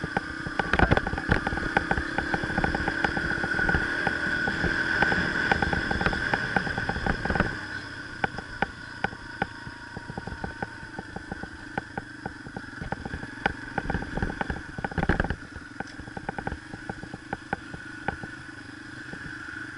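Dirt bike engine running while under way, heard from the rider's helmet, with frequent knocks and rattles from the bumpy ground. About seven seconds in the engine eases off and the bike slows. A short louder burst of knocking comes a little past halfway through the rest.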